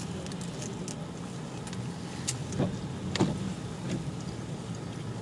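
Steady low hum of a car cabin, with a few short clicks and smacking sounds of someone biting into and chewing a bagel.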